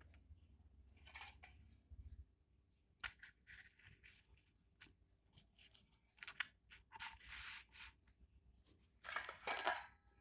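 Faint rustling and scraping in several short bursts as hands lay a fried egg omelette onto a chapati on a wooden rolling board and press it down. The loudest burst comes near the end.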